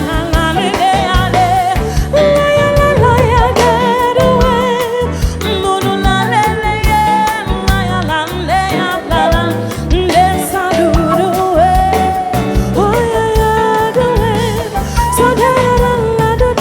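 Band music with a singer holding long, wavering notes over a steady bass beat.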